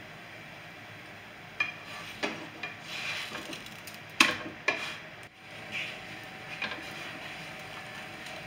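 Utensil knocking and scraping against a nonstick frying pan as a puffed naan is lifted and flipped. There are several sharp clicks, the loudest about four seconds in, over a steady low hiss.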